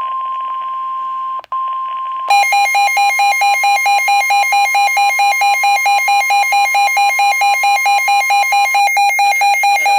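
NOAA Weather Radio 1050 Hz warning alarm tone, a steady single tone, cutting out briefly about a second and a half in. About two seconds in, the Midland WR120 weather radio's own loud pulsing alert beep starts over it, about four pulses a second, and keeps going.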